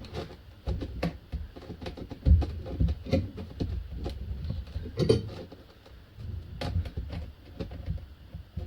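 Irregular metal clicks, knocks and low thuds of a G-clamp being worked on a brake caliper to force its piston back; the piston is hard to push back.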